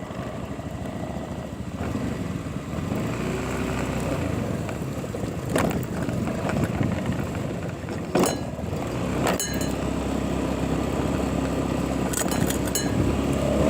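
Motorcycle engine running steadily, with several sharp clicks or knocks scattered through it.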